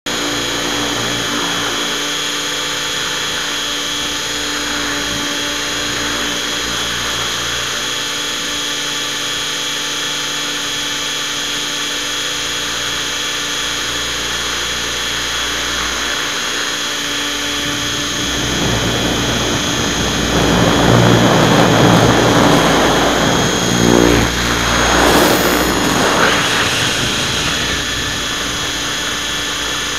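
Radio-controlled helicopter's motor and rotor heard from its onboard camera: a steady machine whine made of several fixed tones. It grows louder and rougher, with a rushing noise, for about eight seconds past the middle, then settles back.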